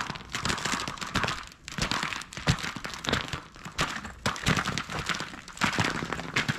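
Footsteps crunching over ice-crusted snow and ice-coated twigs: a run of irregular crunches, cracks and small knocks.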